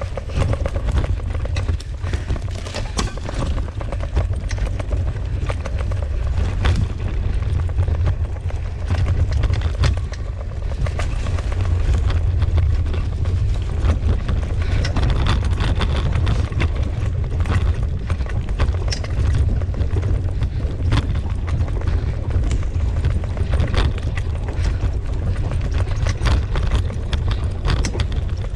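Steady low rumble of a dog-drawn wheeled rig moving fast over a dirt trail behind a team of Siberian huskies, with scattered knocks and rattles as it jolts along.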